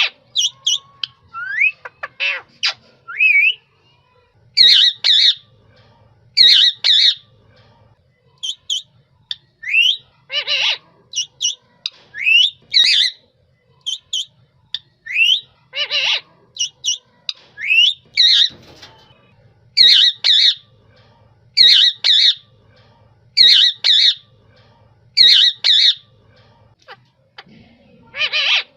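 A parrot squawking over and over, harsh squawks mixed with short rising whistled calls. In the last third the squawks settle into a regular run of double calls about every two seconds.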